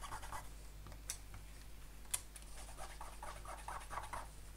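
Faint, rapid scratchy rubbing on a thin metal BGA reballing stencil as it is handled in the fingers, in two spells, with two sharp clicks about one and two seconds in.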